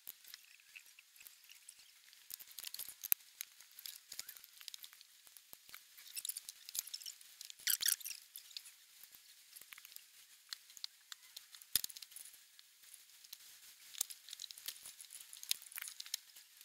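LEGO bricks from the 3179 Repair Truck set being handled and fitted together by hand: scattered small, light plastic clicks and rattles, with a louder cluster of clicking about eight seconds in.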